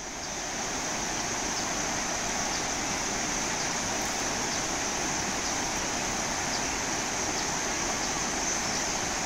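Steady outdoor background noise, an even rushing hiss with a constant high-pitched whine over it and a few faint short chirps.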